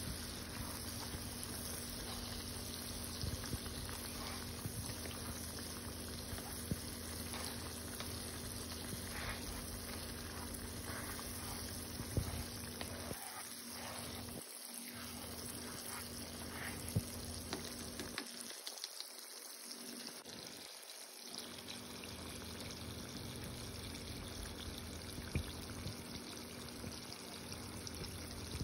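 Spiced sauce bubbling and sizzling steadily in a pan on the stove, with a few scattered clicks as a spoon stirs it.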